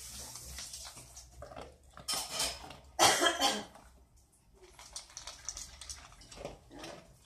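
Old English sheepdog eating from a stainless steel bowl while lying down: chewing and the metal bowl clinking and scraping on the tile floor, with two short louder bursts about two and three seconds in.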